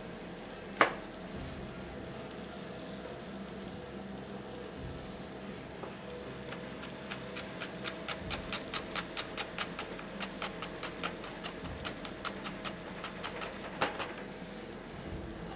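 Kitchen knife chopping fennel on a cutting board: an even run of short strokes, about three or four a second, through the second half, with single louder knocks shortly after the start and near the end. A faint steady sizzle of frying runs underneath.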